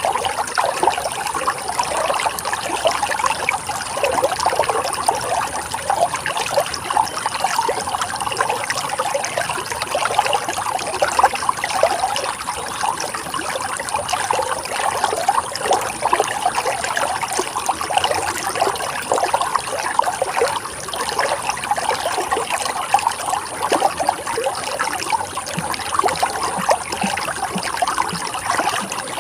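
Running water flowing and trickling steadily, with a constant rush dense with small quick splashes.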